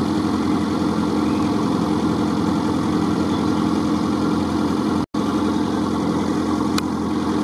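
Off-road vehicle's engine running at a steady idle, its pitch unchanging, with a momentary break about five seconds in.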